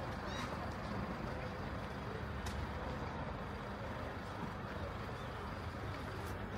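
Steady low mechanical rumble and hum of a cable car, with a few faint sharp clicks.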